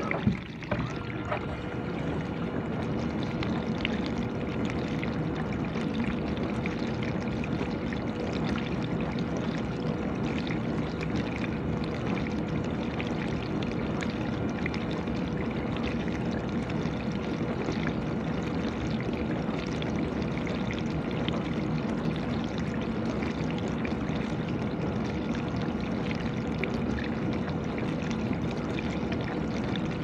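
GE dishwasher running its wash cycle: water spraying and sloshing inside the tub with the circulation pump running, a steady hum under the even rush of water. The sound briefly dips with a small jolt just after the start.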